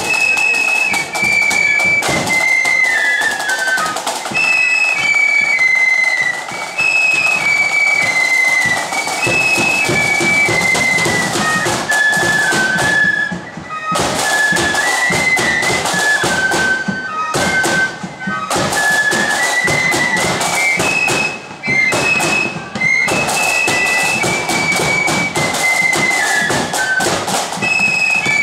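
Marching flute band in the blood-and-thunder style: a massed flute melody over heavy bass drum and snare drums, with a few brief breaks in the drumming partway through.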